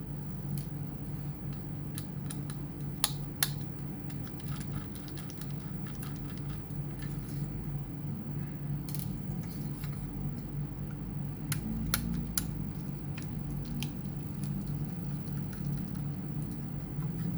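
Scattered small clicks and taps of hands working on a laptop's screws and parts, with a few sharper clicks about three seconds in and again near the middle, over a steady low hum.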